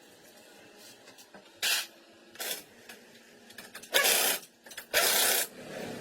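Four short hissing bursts from a pressurised nozzle: a brief one, a weaker one, then two longer, louder ones about half a second each.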